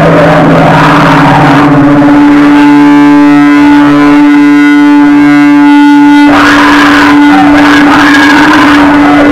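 Loud, heavily distorted noise music from an electric guitar and effects played through amplifiers. A steady drone is held throughout. From about two and a half seconds in, a buzzy tone is layered on top; it cuts out near six seconds into harsh noise with warbling high feedback tones.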